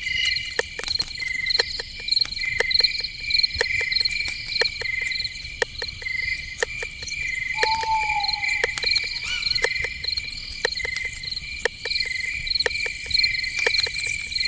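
Night forest ambience of crickets chirping steadily in rapid pulses, with frequent scattered short ticks. About halfway through, a single call lasting about a second falls in pitch.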